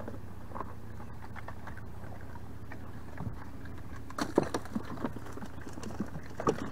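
Knocks and clatters of fishing gear in a small boat over a steady low rumble. A sharp click comes at the start, then a cluster of knocks about four seconds in and another near the end.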